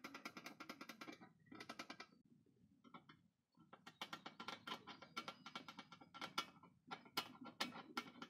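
Tip of a screwdriver-type tester scratching marks onto the metal floor of an amplifier cabinet through a transformer's mounting holes: quick, faint scraping strokes, with a pause of about two seconds near the middle.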